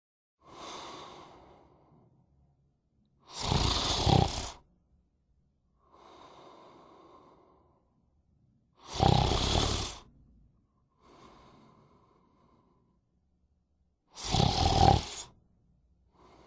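Snoring in slow breaths: three loud rasping snores about five seconds apart, each followed by a quieter breath out.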